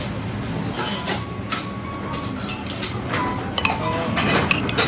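Dishes and cutlery clinking over a steady restaurant-kitchen hum, with a run of sharp clinks near the end as forks strike a ceramic bowl.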